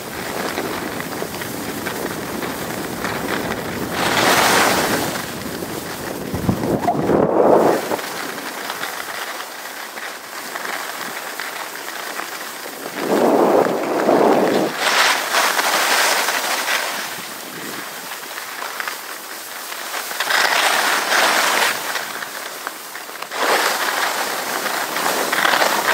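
Wind rushing over the microphone and skis hissing and scraping over packed snow on a downhill run, swelling louder in several surges.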